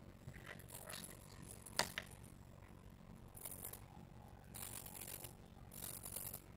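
Small hobby micro servos whirring faintly in short bursts of about half a second, several in a row, as they turn to follow the tilt of the MPU6050 sensor board. Two sharp clicks come just before the bursts begin.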